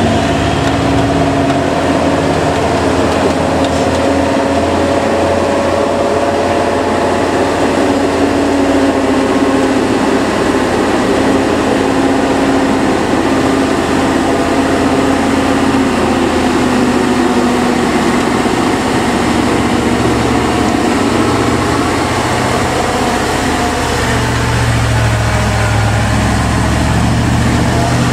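Heavy truck diesel engines running steadily, a drone whose pitch drifts slowly, with a deeper low drone growing stronger near the end.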